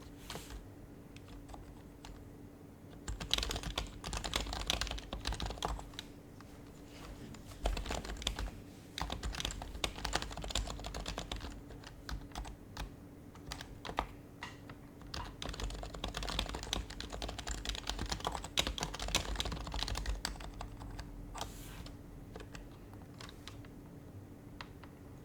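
Typing on an HHKB Professional HYBRID Type-S keyboard with silenced Topre switches: runs of quick keystrokes with short pauses. The typing starts about three seconds in and stops a few seconds before the end.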